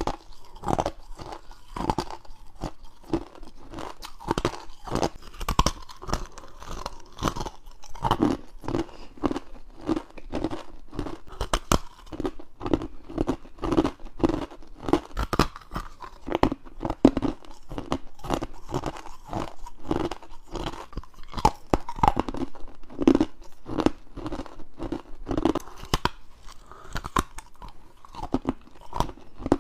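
Close-miked bites into frozen ice and freezer frost: a dense run of crisp crunches, several a second, with no pauses.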